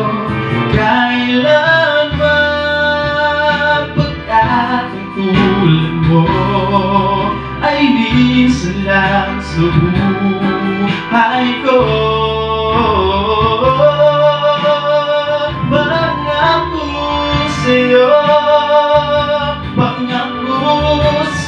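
A man singing a Tagalog love ballad into a handheld microphone, holding long notes over an instrumental backing track.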